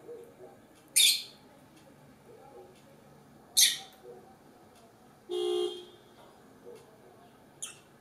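Lovebird giving two loud, shrill calls, about a second in and again about two and a half seconds later, with a faint short chirp near the end. Between them comes a half-second steady toot, like a horn.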